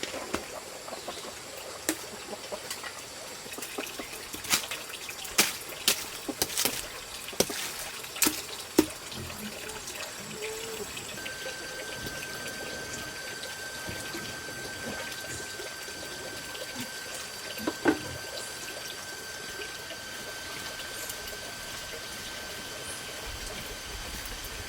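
Water trickling, with a run of sharp knocks in the first several seconds and a steady high-pitched tone that sets in about halfway through.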